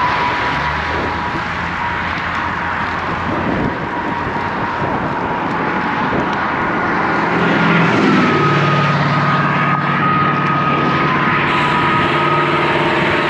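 Road traffic passing on a highway, heard from the shoulder with wind rushing over the microphone; a motor vehicle's engine hum grows in about eight seconds in and stays to the end.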